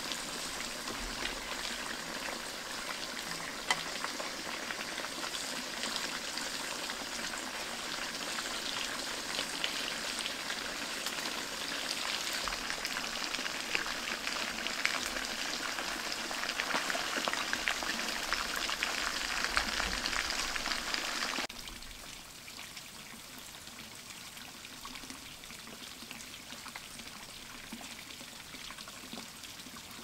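Fish pieces frying in hot oil in a metal wok over a wood fire: a dense, crackling sizzle. About 21 seconds in it drops suddenly to a fainter, steadier hiss.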